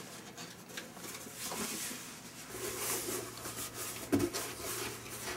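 Cardboard box being handled and opened: flaps rustling and scraping, and items shifted inside, with a dull knock about four seconds in.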